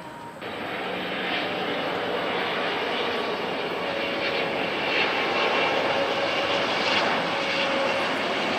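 Jet engine noise from a Boeing 777-300ER's GE90 engines as it comes in to land, a steady rushing sound with faint humming tones that starts abruptly about half a second in and grows slowly louder.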